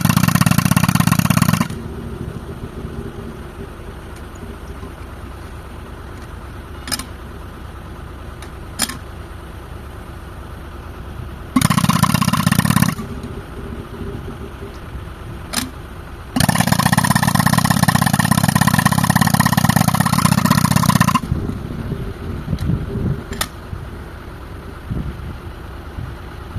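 Pneumatic rock breaker (jackhammer), fed by a tractor-mounted air compressor, hammering rock in three loud spells: briefly at the start, about a second near the middle, and about five seconds later on. Between the spells the tractor engine runs steadily, with a few sharp single clicks.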